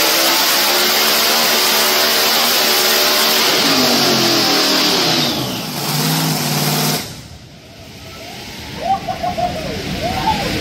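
Supercharged Hemi V8 of a Pro Mod drag car running hard on a hub dyno during a dyno pull. A high whine falls away about five seconds in, and the engine cuts off abruptly about seven seconds in.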